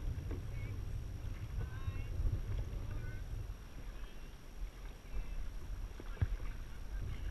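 Dragon boat under way with its crew paddling: a steady low rumble of water rushing past the hull, with occasional sharp knocks and splashes from the paddles.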